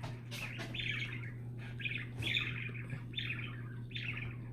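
A dog whining in a run of short, high-pitched squeaks, about two a second, over a steady low electrical hum.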